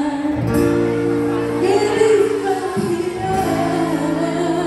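Music with a singer, played over a PA sound system in a large hall: a voice sings over long held chords.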